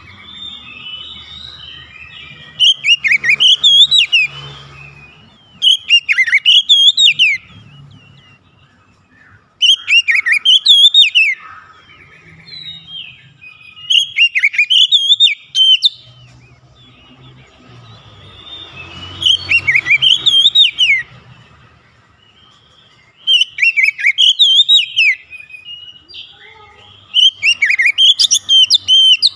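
Oriental magpie-robin singing loudly and energetically in repeated whistled phrases. There are about seven bursts, each a second or two long and a few seconds apart, with softer chirping between them.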